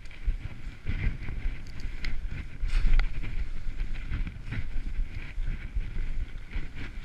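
Skis cutting through fresh powder: a continuous hiss of snow with irregular knocks and thumps through the turns, over wind rumbling on the microphone.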